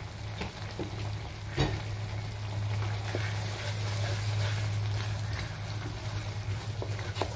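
Tauchu sauce with onions and chillies bubbling and sizzling in a wok as a wooden spatula stirs through it, with a couple of light knocks of the spatula against the pan and a steady low hum underneath.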